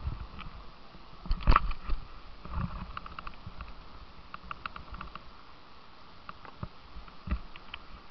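Water rushing and lapping around a plastic whitewater kayak on a river below a weir, with a few knocks and bumps against the hull. The loudest bump comes about a second and a half in.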